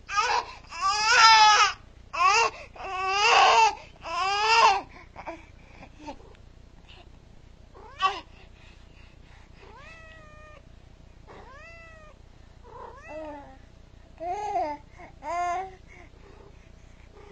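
A baby crying in several loud wails, then a domestic cat meowing a few times, quieter, about ten seconds in, followed by two more short loud cries near the end.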